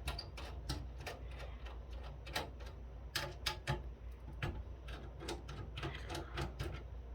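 Irregular small metallic clicks and taps of a hand screwdriver working screws out of a KVM switch's faceplate and metal chassis, over a low steady hum.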